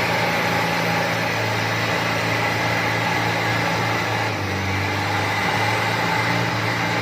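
Off-road 4x4's engine running at steady revs, with a brief change in its note about halfway through.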